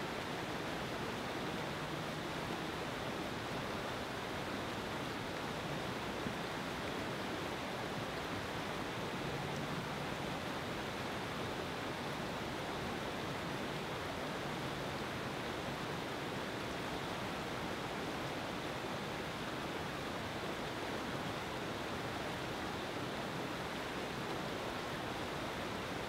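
Whitewater river rapids below Hogs Back Falls rushing steadily, a dense, even roar of churning water.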